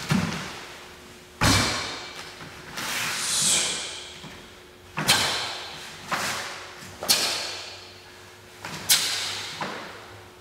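A Taekwon-Do pattern performed on foam mats: about seven sharp snaps and thuds, one with each technique, from the uniform cracking and the feet landing and stamping, each echoing in a large hall. The heaviest thuds come at the start and about a second and a half in, after a kick. A longer hissing swell about three seconds in fits a controlled breath.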